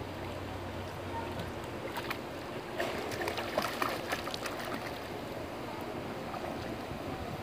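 Pool water splashing as a swimmer kicks her legs, heaviest from about three to four and a half seconds in, over a steady background hiss.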